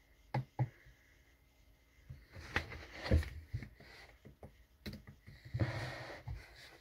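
Scattered soft knocks and taps of a phone being handled close to its microphone, with a short breathy noise near the end.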